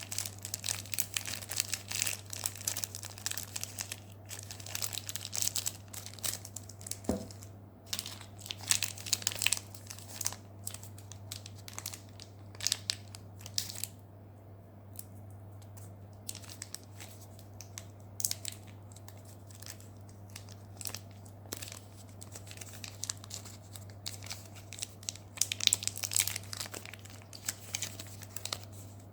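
Candy wrappers crinkling and tearing as sweets are unwrapped by hand, in irregular bursts of crackles with a lull about halfway through, over a steady low hum.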